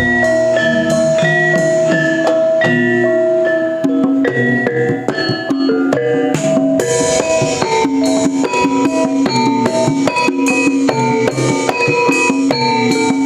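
Javanese gamelan playing an opening piece (gending pambuka): struck metallophones ring out a steady melody in even strokes over drumming.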